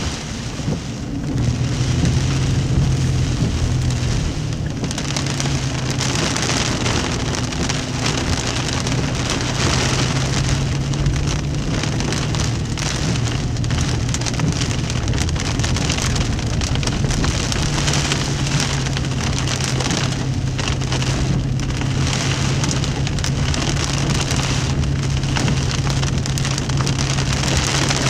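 Heavy rain drumming on a car's roof and windshield, heard from inside the cabin, louder from about a second and a half in. Under it runs a steady low hum from the car.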